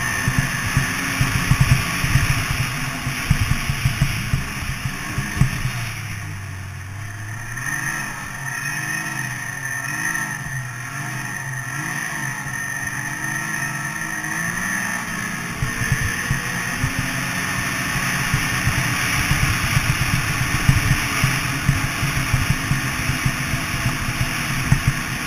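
Snowmobile engine running under way, its pitch rising and falling with the throttle through the middle stretch. Rough low rumbling buffeting on the microphone, heavier at the start and again in the second half.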